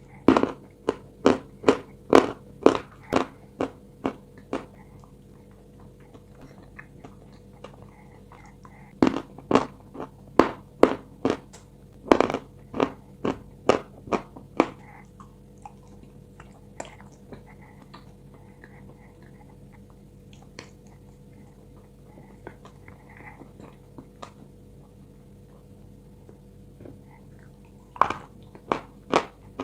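A person biting and chewing small crunchy pieces of eating chalk close to the microphone: quick runs of sharp crunches over the first few seconds, again from about nine to fourteen seconds in, and once more near the end, with quieter chewing between. A steady low hum runs underneath.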